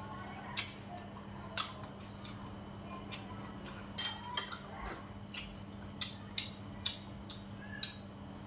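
Metal spoon and chopsticks clicking against a ceramic rice bowl while eating: about eight separate sharp clicks at irregular intervals.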